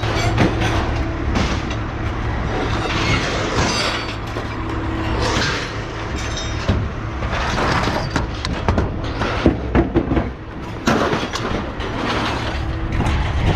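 Scrap metal pieces (tools, pipe and car jacks) clanking and clattering as they are tossed out onto a scrap pile, a series of irregular metal impacts over a steady low engine rumble.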